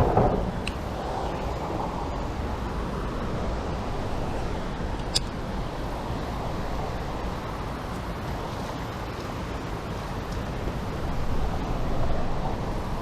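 Steady rush of water over a creek waterfall, an even wash of noise. A brief louder burst right at the start and a single sharp click about five seconds in.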